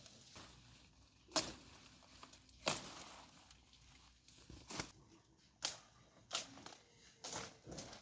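Leafy plant stems being snapped and torn off by hand, with rustling foliage: a series of about six sharp crackles at irregular intervals.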